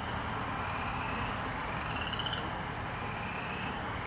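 A night animal's short, rising pulsed trill, heard once about two seconds in, over a steady background hiss.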